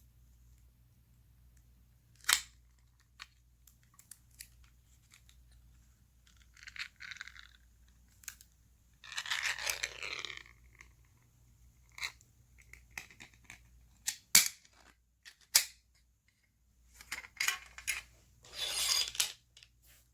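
Food packaging being handled and torn open: several longer tearing, rustling stretches with sharp clicks between them.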